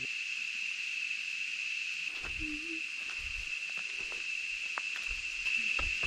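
Steady high-pitched drone of cicadas in tropical forest, with footfalls on the dirt trail thudding about two seconds in and near the end, and a short low wavering note about two and a half seconds in.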